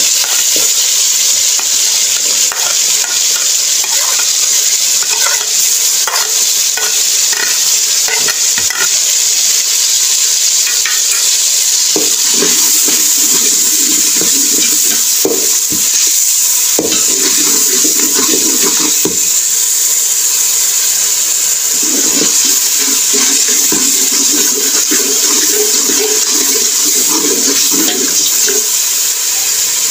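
Tomatoes, green chillies and ginger paste sizzling in hot oil in a metal pot with a steady hiss, stirred with a slotted metal spoon that scrapes and clicks against the pot now and again.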